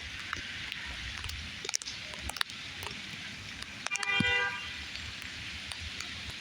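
Steady rain hiss with scattered drip ticks, and a short vehicle horn toot about four seconds in.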